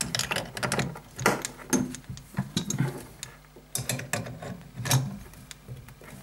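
Irregular metal clicks and knocks of an adjustable spanner being fitted and worked onto the compression nut of a braided flexible hose connector.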